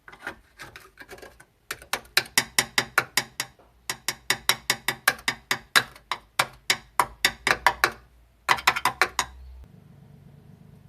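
Rapid, sharp mechanical clicking at about five to six clicks a second, in four runs with short pauses between them. It stops just before the end, leaving a faint steady low hum.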